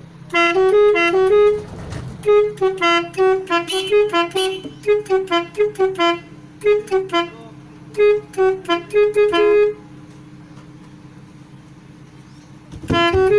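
Bus telolet horn, a multi-tone musical air horn, playing quick runs of stepping notes in several short phrases. It pauses for about three seconds near the end, then starts again. A steady low hum runs underneath.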